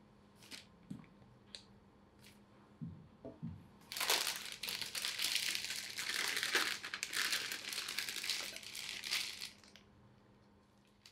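A few soft scrapes and taps of a silicone spatula working dough into a piping bag, then, about four seconds in, a clear plastic piping bag crinkling for nearly six seconds as hands gather and pull it up, stopping sharply.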